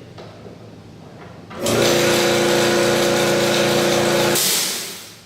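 Makita MAC2400 2.5 HP air compressor starting up, running steadily for about three seconds, then cutting out. A short hiss of air follows as the unloader valve vents, fading away.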